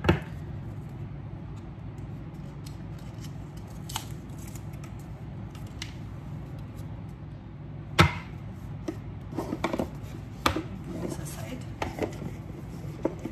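Cardboard card box and deck of oracle cards handled on a tabletop: scattered taps and knocks, the sharpest about eight seconds in, then a run of light clicks near the end, over a steady low hum.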